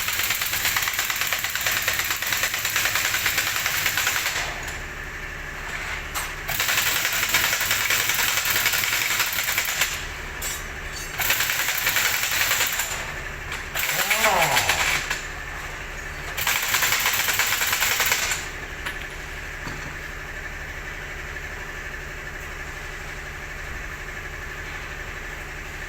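A steady engine idle, with five loud bursts of harsh hissing, rattling noise, each one to four seconds long, over it in the first 18 seconds. After that only the idle remains.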